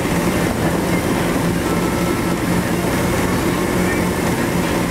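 Motorboat engine running steadily at speed under a constant rush of churning wake water.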